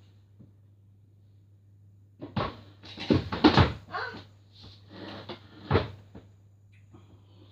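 Knocks and clattering bangs of household furniture being handled, in a cluster about two seconds in, with the loudest knocks around three and a half seconds and near six seconds in.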